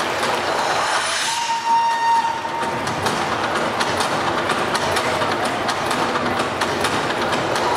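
Loud stage-show sound in a theatre: a dense rushing noise full of scattered clicks, with one held horn-like note of about a second, heard a little over a second in.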